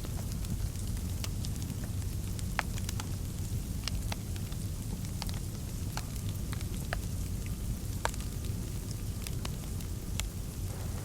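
Wood fire crackling in a fireplace: irregular sharp pops and snaps, a few each second, over a steady low rumble.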